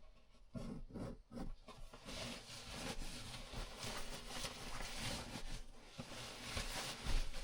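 Irregular rustling with light clicks and knocks, as of things being handled at close range, with a sharper knock near the end.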